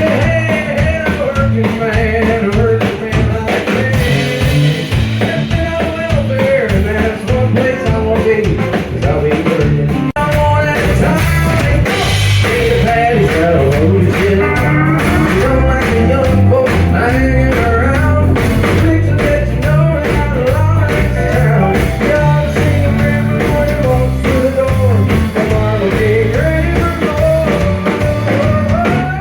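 Blues-flavoured rock-and-roll music: a singing voice over guitar with a stepping bass line and drums.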